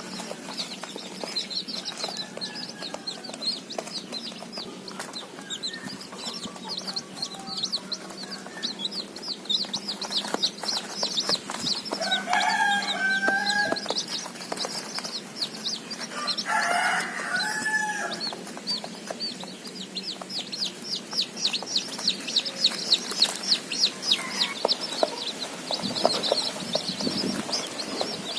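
A group of baby chicks peeping continuously in rapid, high chirps. Twice, at about 12 and 17 seconds in, a lower, longer call sounds over the peeping.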